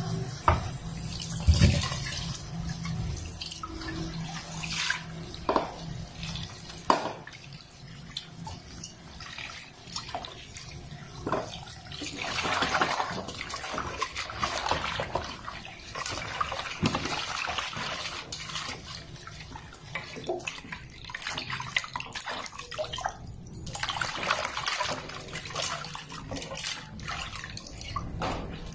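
Kitchen tap running into a stainless steel bowl in a sink, with water splashing and swishing as hands wash long string beans in it. A few sharp knocks near the start.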